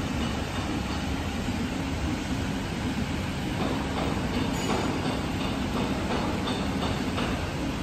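Camless CNC spring forming machine running in production, coiling small springs from 0.3 mm wire: a steady mechanical hum, with light clicking from about halfway through.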